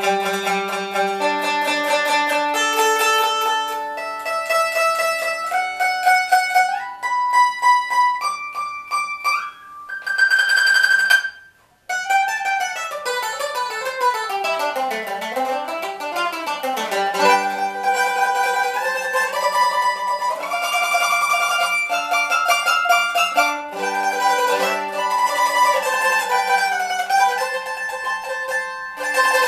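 Maple-ribbed mandolin strung with blue Optima strings, played solo: quick picked arpeggios and scale runs, a single high note held about ten seconds in, a brief stop near twelve seconds, then more runs sweeping down and back up.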